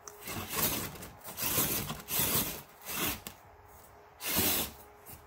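An upside-down Axial SCX24 1:24-scale RC crawler scraping and rubbing against styrofoam in about five short rasping bursts as it is driven in jabs of throttle.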